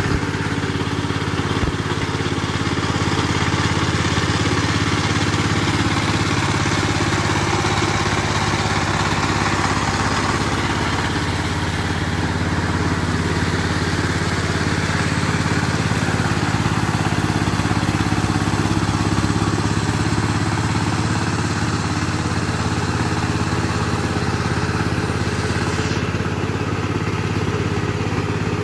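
Single-cylinder diesel engine of a two-wheel walking tractor (power tiller) running steadily under load while ploughing a flooded paddy field.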